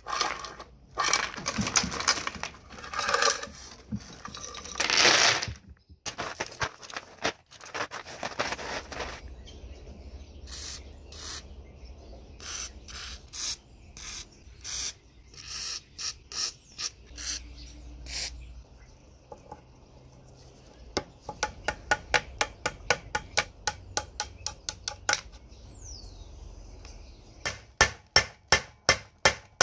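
Rusty hoist chain rattling and scraping as the old chain hoist is handled. This gives way to separate metallic clicks and then quick runs of hammer taps on metal, about three a second, striking the pin that holds the hook to the hoist body.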